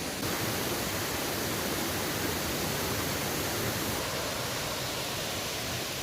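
Waterfall rushing as a steady, dense hiss, a little louder from just after the start until about four seconds in.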